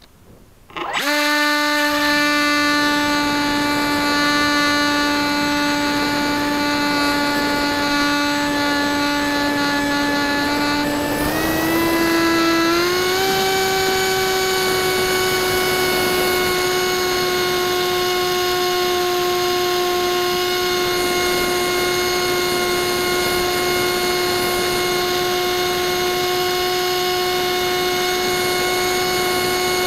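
Brushless electric motor and propeller of a Bixler 1.1 RC plane, heard from on board, spinning up suddenly about a second in to a loud, steady whine as the plane climbs for altitude. Its pitch rises a step about halfway through and then holds.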